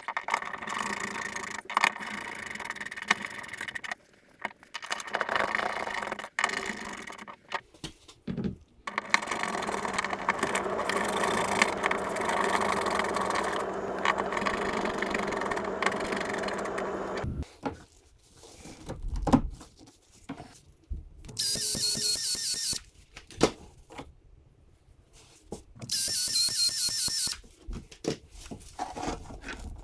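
Hand-tool and plumbing work noises, with two short bursts of a high-pitched power-tool whine near the end.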